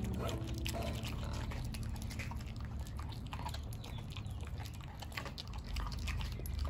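Dog chewing and gnawing a raw meaty bone, with many irregular clicks and crunches of teeth on bone.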